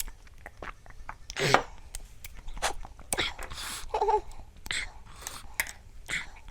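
Close-up eating sounds: papaya salad and noodles being chewed, with many quick wet mouth clicks and several short noisy rushes, the loudest about one and a half seconds in. A brief vocal sound comes about four seconds in.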